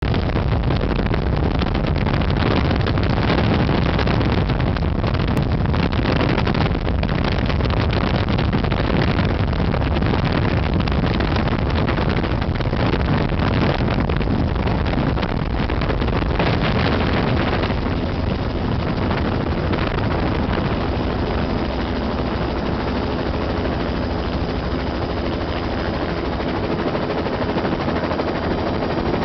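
Helicopter in flight, heard from aboard: a steady, loud din of rotor and engine. It eases slightly about two-thirds of the way through, and a few steady hums come through.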